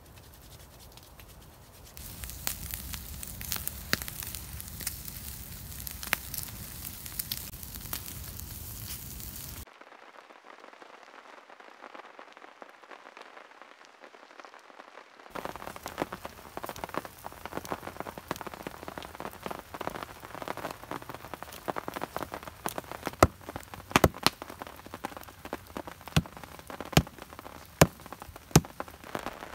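Rain pattering on the forest floor with a wood fire crackling and popping. Near the end comes a run of louder sharp clicks and snaps.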